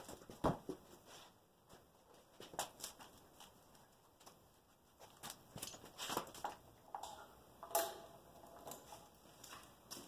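Scattered footsteps, knocks and clicks of a person walking about and handling things. The sharpest knock comes about half a second in, and another near eight seconds.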